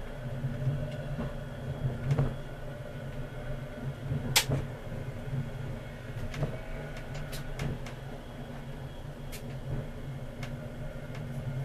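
Berlin tram running along street track, heard from the driver's cab: a steady low drive hum with scattered sharp clicks and knocks, the loudest about four seconds in.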